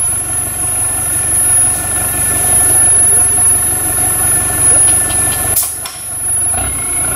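Off-road 4x4 vehicle engine running steadily, with a sudden break about five and a half seconds in.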